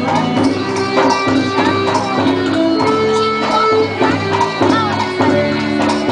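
Instrumental festa junina music for a quadrilha dance, with plucked strings over held notes and a steady beat.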